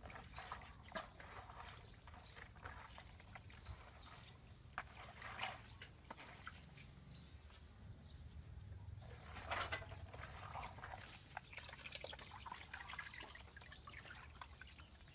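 Water splashing and dripping, with small knocks of handling, while a bird gives a short rising chirp about five times, a couple of seconds apart.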